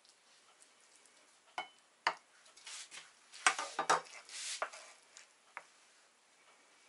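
Serving spoons scraping and scooping soft baked casserole out of a baking tray, with irregular clinks of spoon against the pan and soft squelches of food. It starts with a couple of single clicks, turns busiest and loudest in the middle, then tails off.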